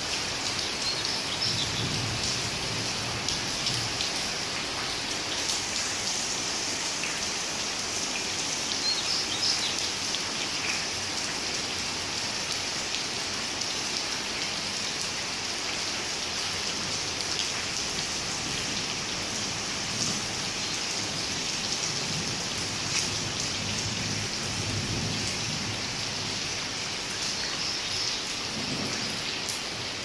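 Steady rain falling: a dense, even hiss with small drop splats scattered through it, and a few faint low rumbles now and then.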